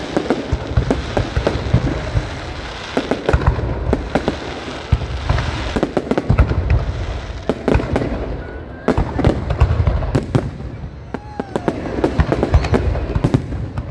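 Aerial fireworks display: a dense, unbroken run of shell bursts, sharp bangs and crackles over deep low booms.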